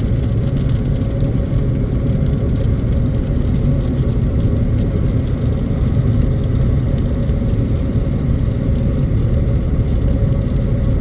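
Steady road and engine noise heard inside a moving car's cabin: a constant low rumble of tyres and engine at cruising speed.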